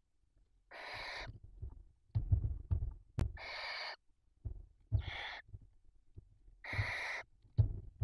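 Barn owls giving four drawn-out rasping hisses, each about half a second long, mixed with dull thumps and scuffles of the birds shifting about on the nest-box floor; the thumps are the loudest sounds.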